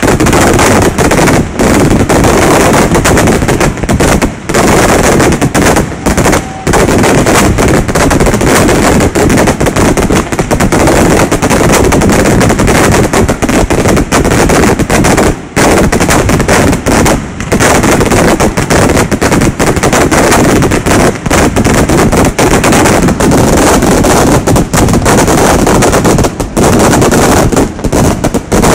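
Aerial fireworks shells bursting in a dense, continuous barrage: rapid bangs so close together they run into one another, with only a few brief breaks. Very loud, near the limit of the recording.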